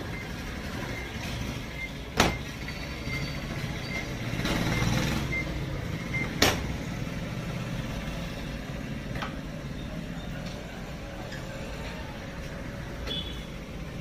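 Samsung fully automatic top-load washing machine: a steady low hum, with two sharp knocks about two and six seconds in as its lid is shut and its controls are handled.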